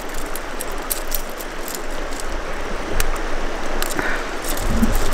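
Steady rush of a flowing river, with a few small clicks and rattles of fishing tackle handled at the end of the line.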